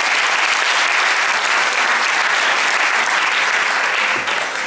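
Theatre audience applauding steadily, the clapping thinning out near the end.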